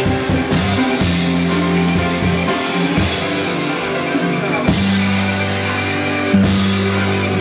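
Live rock band playing an instrumental passage with electric guitar, bass guitar, drum kit and keyboards, the drums keeping a steady beat under held bass notes; no vocals.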